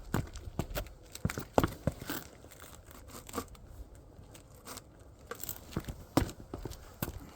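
Irregular crunching and clicking, several sharp clicks a second, with louder ones about one and a half seconds in and about six seconds in.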